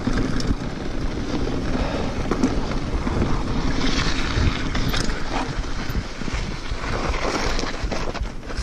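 Wind rushing over an action camera's microphone as a mountain bike rolls along at speed, with tyre noise and scattered short clicks and rattles from the bike.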